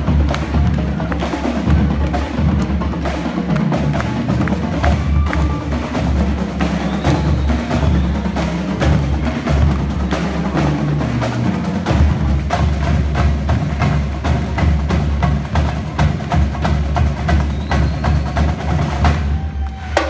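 Marching drumline playing a loud, fast cadence: tenor drums struck in rapid runs over pounding marching bass drums, the playing cutting off just before the end.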